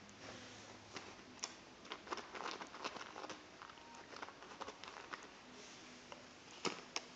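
Cat's claws scratching and pawing at a sisal scratching pad: scattered light scrapes and taps, busiest a couple of seconds in, with two sharper clicks near the end.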